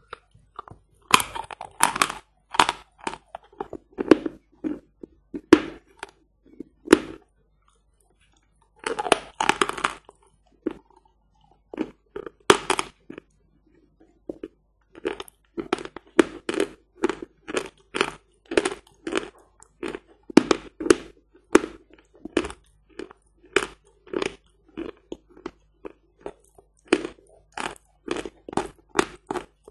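A piece of hard natural lump chalk ('Badger' chalk) being bitten and chewed, crunching close to the microphone. Dense bursts of crunching come about a second in and again around nine seconds, followed by steady chewing crunches about two a second. Chalk that is hard yet soft-ringing, grinding down to a non-sticky paste.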